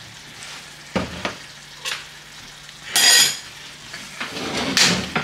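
Metal spoon scraping and knocking in a pan as food is scooped out and served, a few separate scrapes with a ringing clink about three seconds in.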